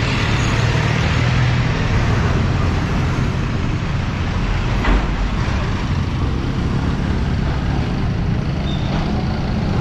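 Busy street traffic: jeepney and other vehicle engines running past with a steady low rumble. A single sharp knock about five seconds in.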